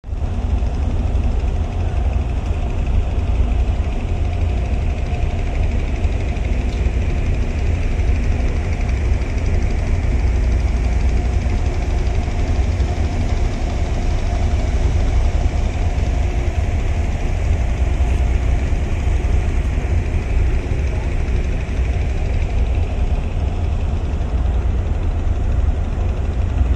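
Engine running steadily with a deep, continuous low rumble.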